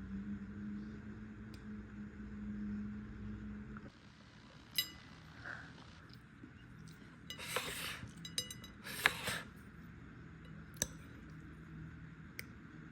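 A steady low hum that stops about four seconds in, then scattered faint clinks and clatters of dishes and kitchenware, with two short scraping bursts near the middle.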